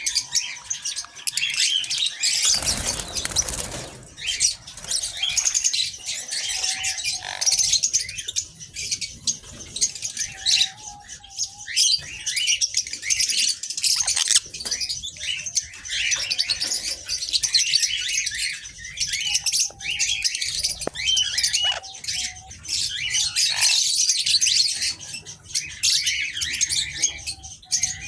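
A flock of small aviary birds chirping and twittering, many calls overlapping without a break. About three seconds in there is a brief loud rush of noise lasting about a second.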